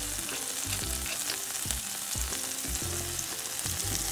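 Cream sauce with garlic heating in a skillet, sizzling and crackling steadily as it comes up toward a boil. Soft background music plays underneath.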